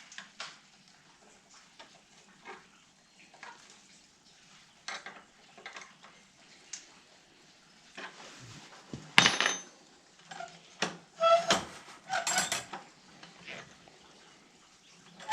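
Hand-operated sawmill band blade tooth setter being worked and adjusted: scattered metal clicks, then a run of louder metallic clinking and clattering from about halfway through.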